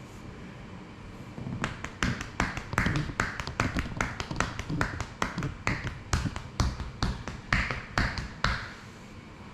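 Percussive massage: hands rapidly slapping and chopping on the body, about four sharp strikes a second for some seven seconds, starting a moment in and stopping shortly before the end.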